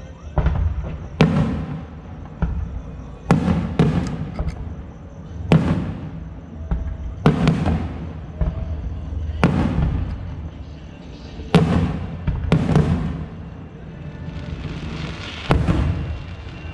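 Aerial fireworks shells bursting: about a dozen sharp bangs at irregular intervals of one to two seconds, each trailing off in a rumbling echo, over a steady low rumble.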